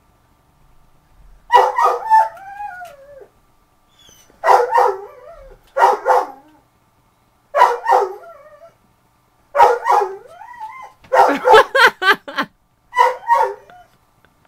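A man imitating a dog with his voice: about seven bouts of barking, several trailing off into whines that slide up and down in pitch, with a quick run of barks about two-thirds of the way through.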